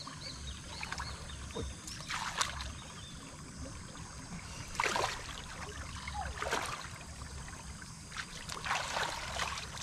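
Shallow creek water splashing and sloshing in several short bursts a second or two apart.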